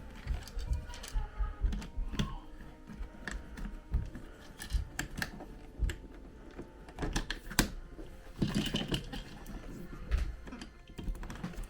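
Irregular clicks, taps and scrapes as electrical wiring and a motion-sensor light switch are pushed and worked into a wall electrical box that they barely fit.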